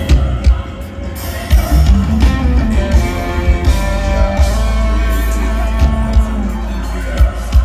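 Live band music over a concert sound system: heavy bass under repeated kick-drum thumps, with a held melodic line over the top.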